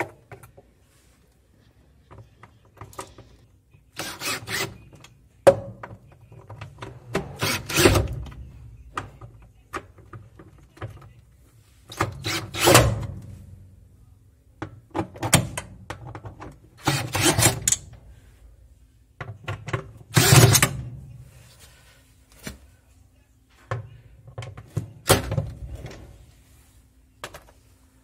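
Cordless drill driving the transmission mounting screws of an Easy 15 kg washing machine in repeated short bursts, about a dozen, with quiet gaps between. The screws are only being snugged in a crosswise order to centre the transmission on the plastic tub, not tightened.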